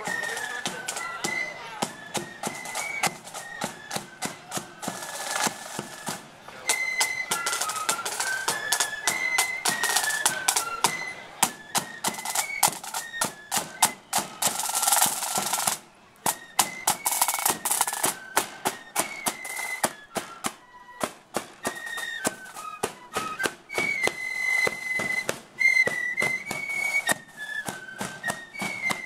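Marching flute band playing: flutes carry a stepping melody over rapid snare-drum strokes and a bass drum.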